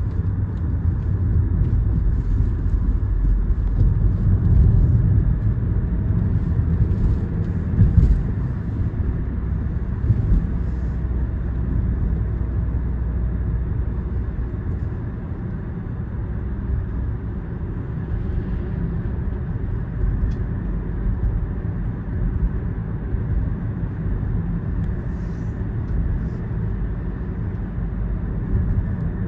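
Car driving along the road: a steady low rumble of road and engine noise, with a short thump about eight seconds in, like a wheel hitting a bump.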